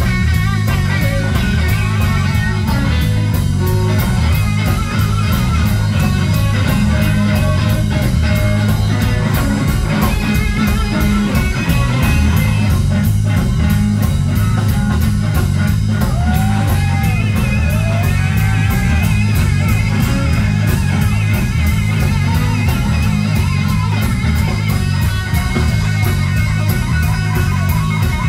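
Live blues-rock band playing loud and amplified: electric guitars over electric bass and a drum kit, with a few bent guitar notes around the middle.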